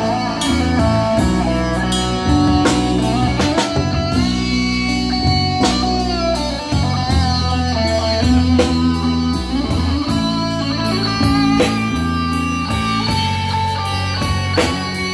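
Live rock band playing: electric guitars over bass and a drum kit.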